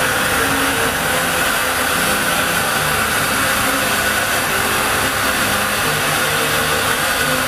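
Showman's steam traction engine running its belt-driven dynamo, giving a steady whirring hiss with no break or change.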